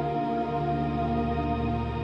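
Background music: slow ambient music with sustained, held chords.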